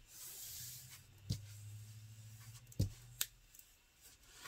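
Hands rubbing and sliding across the plastic release film of a diamond painting canvas: a soft rustle in the first second, then three light taps or clicks.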